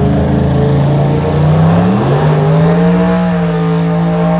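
Car engine revving hard: its pitch climbs about two seconds in, then holds steady at high revs.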